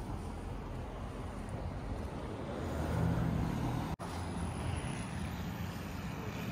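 A vehicle on the move: a steady low rumble of road and wind noise. It swells about three seconds in and drops out for an instant about a second later.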